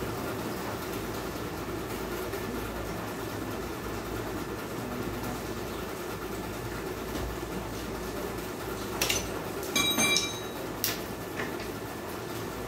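A steady low rumble throughout, with a few sharp metallic clinks about nine to eleven seconds in: hand tools knocking against the motorcycle engine's metal fittings during repair work.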